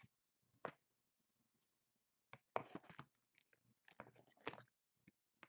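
Faint handling of trading cards and packs: short rustles and clicks as cards are slid and flipped, with a denser crinkly stretch about halfway through.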